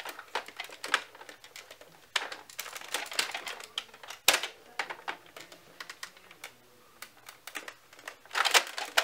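Small plastic clicks and rattles from a Nerf sniper blaster being handled and readied, irregular, with one louder sharp click about four seconds in and a quick cluster of clicks near the end.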